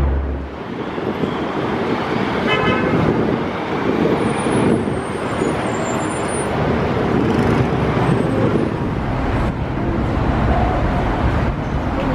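Steady rumble of an aerial tramway cabin and its overhead cable sheaves running, with a short beeping tone about two and a half seconds in.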